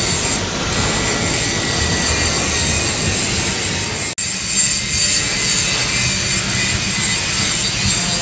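Handheld angle grinder grinding a steel plate: a steady high whine over harsh grinding noise, cutting out for an instant about four seconds in.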